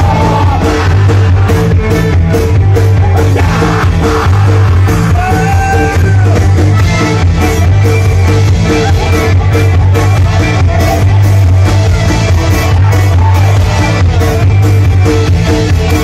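Live rock band with accordion playing loudly: accordion, electric guitar, five-string electric bass and drum kit over a steady drum beat, with occasional sung or shouted vocals.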